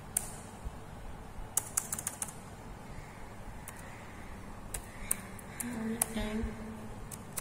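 Computer keyboard keys being typed: scattered single key clicks, with a quick run of several about one and a half to two seconds in.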